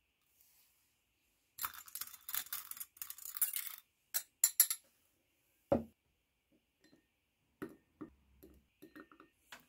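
Metal tweezers rattling and scraping against the inside of a small glass tumbler of liquid, followed by separate sharp clinks of metal on glass and a single heavier knock about halfway through, as small metal parts are picked out one by one.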